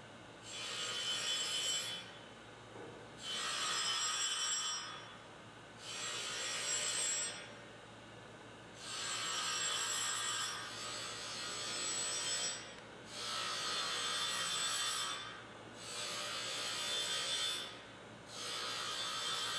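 A diamond dresser truing a newly mounted surface-grinder wheel: a high, scratchy hiss on each pass of the diamond across the spinning wheel face, about eight passes of a second or two each with short pauses between. At first the diamond touches only the high spot of the wheel, a sign that the new wheel sits slightly eccentric on its flanges. By the end the sound is fuller and steadier, because the diamond is in contact with the whole wheel and the wheel's outside diameter is now concentric with the spindle.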